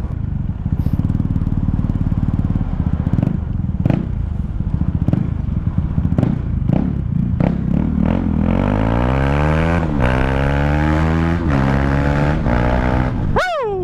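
KTM Duke 390's single-cylinder engine running through an open exhaust pipe: low and steady at first, then from about eight seconds in the pitch climbs as it accelerates, dropping back a few times as it shifts up.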